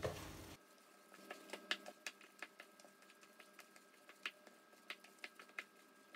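Gloved hands kneading sticky brownie dough in a plastic bowl: faint, irregular small clicks, a few a second.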